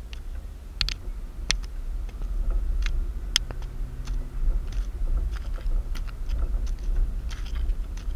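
Car cabin noise while driving slowly: a steady low rumble of engine and road, with a dozen or so sharp clicks and ticks at irregular intervals.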